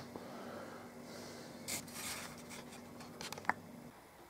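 Faint rubbing and scuffing, then a few light clicks, as hands handle the wooden and card parts of a model railway engine shed kit, over a low steady hum that stops near the end.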